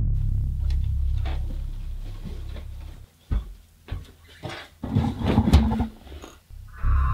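A deep rumble starts suddenly and fades away over about three seconds, followed by a few scattered knocks and clicks; near the end another deep rumble starts abruptly.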